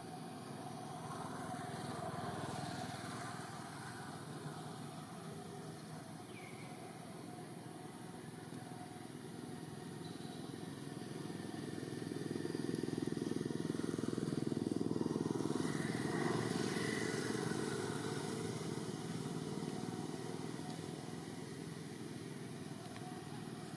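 A motor vehicle passing, its engine noise swelling to loudest about halfway through and then fading, over a steady background hum.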